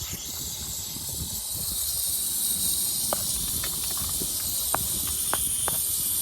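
A steady high hiss, with a few short, light clicks in the second half, typical of hand tools working on a rooftop unit's panels.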